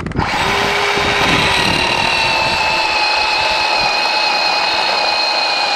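Harbor Freight battery-powered electric chainsaw starting up and cutting through a fallen cherry log, its motor and chain giving a steady high whine that sags slightly in pitch under the load of the cut.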